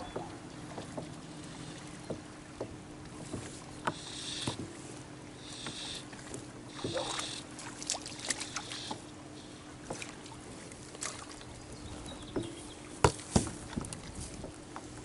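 Light knocks and clicks of fishing gear being handled aboard a plastic fishing kayak, over a faint steady hum, with a few brief splashy hisses in the middle and one sharp knock about thirteen seconds in.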